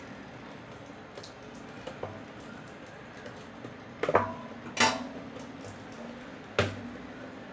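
Three sharp clattering knocks of hard objects, about four, five and six and a half seconds in, over a steady low hiss; the second is the loudest.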